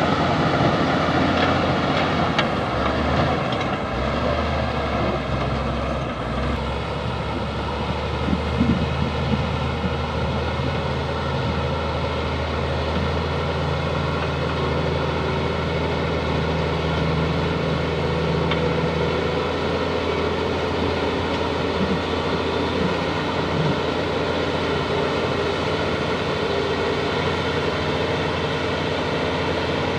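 Bulldozer's diesel engine running steadily under work, with a change in its note about six seconds in and a few knocks a couple of seconds later.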